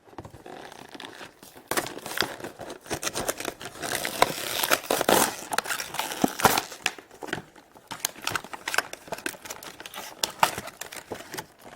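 Toy packaging being torn open and crinkled by hand: a dense, irregular run of crackles and rips, loudest around the middle.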